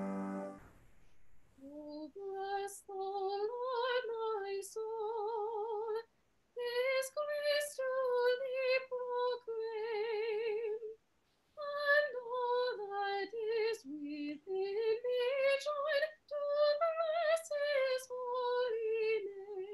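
A woman sings a hymn solo and unaccompanied, in phrases with a wide vibrato and short breaths between them. The last piano chord dies away in the first half second, before she starts.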